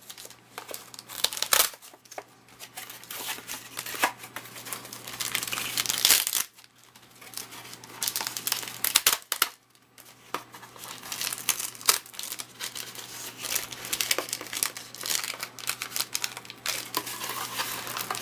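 Crinkling and crackling of wrapped trading card packs being peeled off a repack box's double-sided tape, with short lulls about six and a half and ten seconds in.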